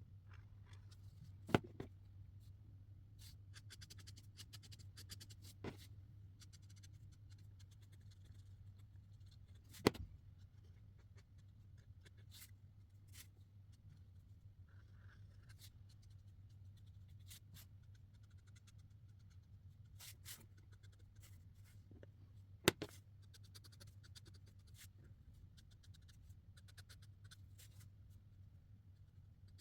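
Felt-tip markers stroking on paper in quick runs of short scratchy strokes, with a few sharp clicks standing out and a steady low hum underneath.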